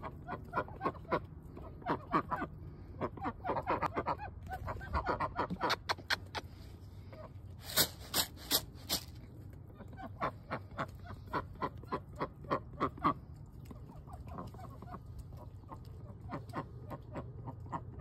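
Domestic ducks quacking over and over in quick runs of short calls, with a steady low hum underneath. A short run of four louder, sharper sounds comes about eight seconds in.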